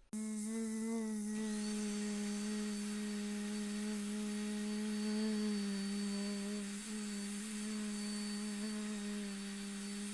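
A power tool's motor running steadily at one constant pitch over a hiss, starting abruptly.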